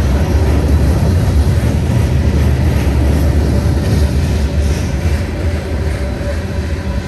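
Mixed freight train's cars rolling past over the rails: a loud, steady low rumble of steel wheels on track.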